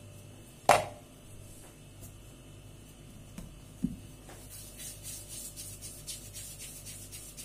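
A sharp knock about a second in, and a smaller one just before halfway. Then comes quick rhythmic rubbing, about five strokes a second, of hands rolling a piece of yeast dough into a ball on a floured wooden board.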